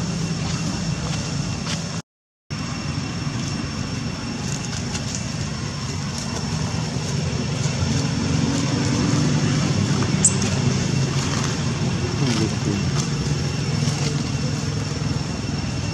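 Steady low outdoor rumble with two faint, steady high tones above it; the sound cuts out completely for about half a second around two seconds in.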